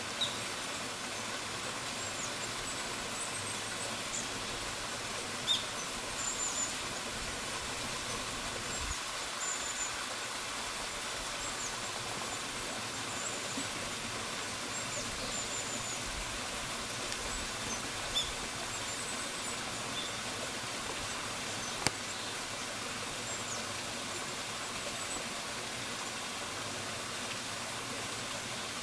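Running water of a partly frozen waterfall, a steady even rush. Faint short high bird chirps come now and then, with a couple of sharp clicks.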